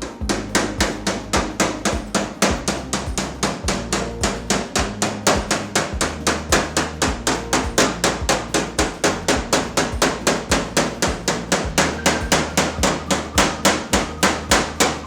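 Rapid, even hammer blows on car body sheet metal, about four a second, folding the flange of a new A panel over onto the panel behind it, with background music underneath.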